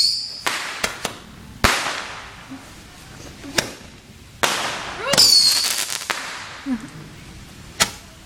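Consumer fireworks going off: a string of sharp pops and bangs spaced out over several seconds, the loudest about one and a half seconds in, with a short whistle about five seconds in.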